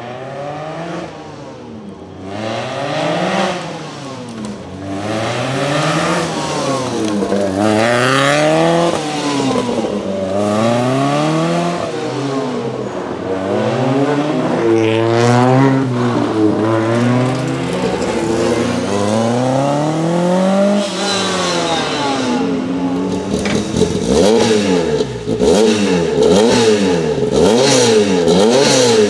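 Lancia Rally 037's supercharged four-cylinder engine revved hard over and over, its pitch rising and falling in quick repeated sweeps.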